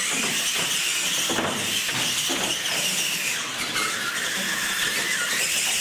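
Electric RC monster trucks racing at full throttle: a loud, steady, high-pitched whine from their motors and gears that comes in suddenly.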